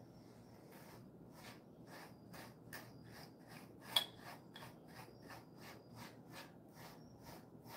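A pet slicker brush stroked through a Jindo dog's coat: short rasping strokes repeating about three times a second, with one sharper click about four seconds in.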